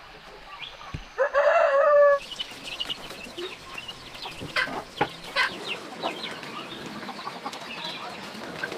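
Domestic chickens: a rooster crowing once for about a second, about a second in, followed by scattered short clucks.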